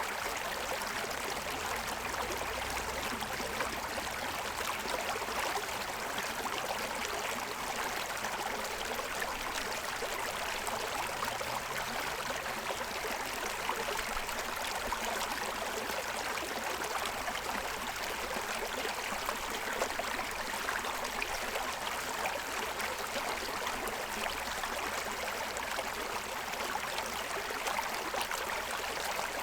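Forest stream running over the stones of its bed: a steady, even rushing and babbling of water.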